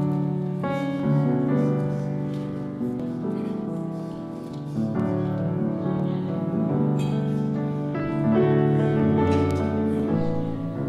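Slow piano music: held chords changing every second or so over a bass line.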